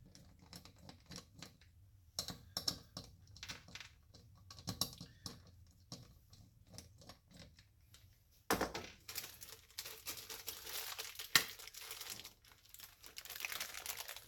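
Scattered small clicks and taps of screws and hand tools being handled, then from about eight seconds in a denser crinkling and rustling of packaging being handled and torn open.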